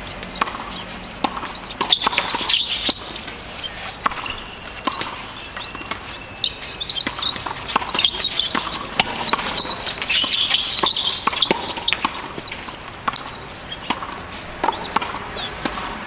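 Tennis balls struck by rackets and bouncing on a hard court during a doubles rally: a string of sharp pops, irregularly spaced about a second apart. Short high-pitched squeaks run throughout.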